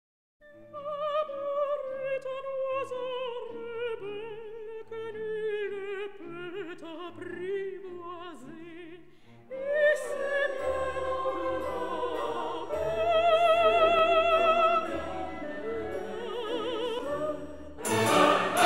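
Opera music: a singing voice with wide vibrato over orchestral accompaniment, growing fuller and louder about halfway through, with a loud, dense swell near the end.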